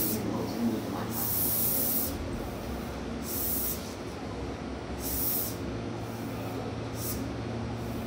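Standing Meitetsu electric train hissing compressed air in about five short bursts, each about half a second to a second long, over the steady low hum of its running equipment.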